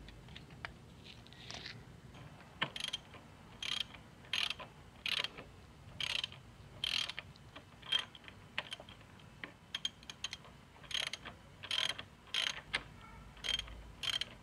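Socket ratchet wrench clicking in short strokes, about one a second, starting a couple of seconds in, as it unscrews the top cap of a Yamaha R3's front fork tube.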